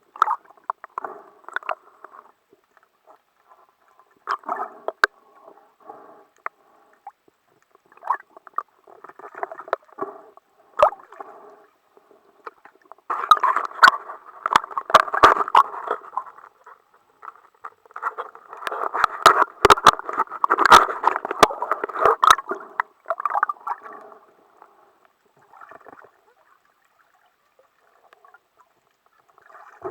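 Water gurgling and bubbling around an underwater camera in irregular bursts, with many sharp clicks in the two loudest stretches.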